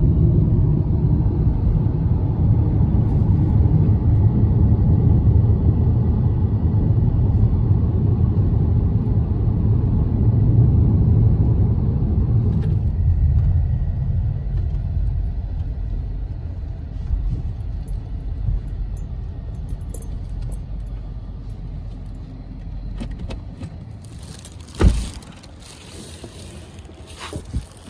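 Road and engine rumble heard inside a moving car, dying away as the car slows to a stop. Near the end a sharp click as the car door is opened, then a few light clicks.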